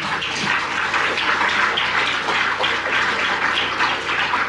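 Audience applauding: many people clapping together, keeping up steadily.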